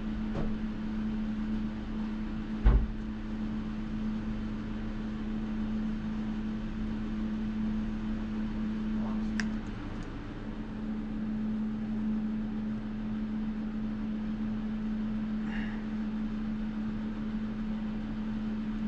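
A steady low machine hum with a single pitched drone, with one dull thump about three seconds in and a faint click near the middle.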